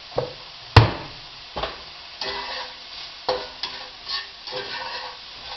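Pork sausage and onion frying in a cast iron skillet while a spatula stirs and scrapes it around the pan, knocking against the iron several times. A sharp knock a little under a second in is the loudest sound.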